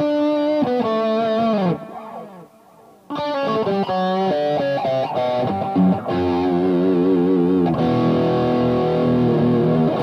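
1996 Made-in-Japan Grover Jackson electric guitar playing a lead phrase. A line of picked notes falls in pitch about a second and a half in, then after a short gap come quick runs that end in long held notes with a wavering vibrato.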